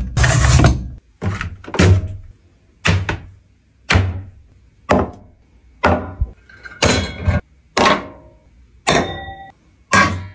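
Hotpot dishes and cookware handled and set down on a table, a run of sudden knocks and thuds about once a second, each dying away quickly. The last couple ring with clear metallic tones as an embossed brass plate is put down.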